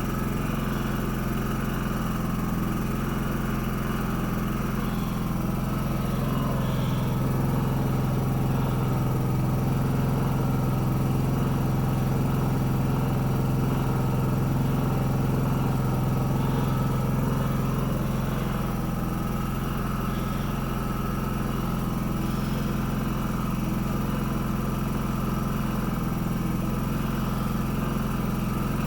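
Champion inverter generator running steadily. It gets a little louder for a stretch midway, then settles back.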